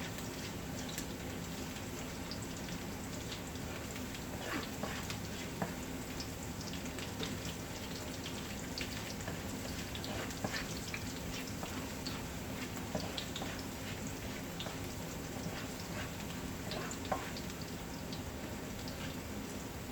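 Garlic frying in cooking oil in a pan: a steady sizzle with scattered small pops and crackles.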